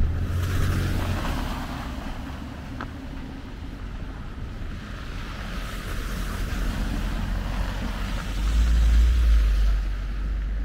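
Car tyres hissing through slush as cars pass on a wet, snowy street. A low gust of wind buffeting the microphone about eight seconds in is the loudest part.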